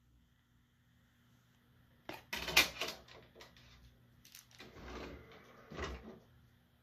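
A disc set into a Panasonic Blu-ray player's tray with a quick run of plastic clicks and clatter, then the disc tray sliding shut and stopping with a knock.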